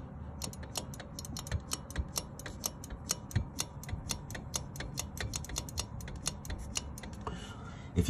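Goodman furnace pressure switch clicking rapidly, about four or five clicks a second, as air is blown into and sucked out of its hose. The diaphragm snaps the contacts open and closed, so the switch is cycling freely and is not stuck.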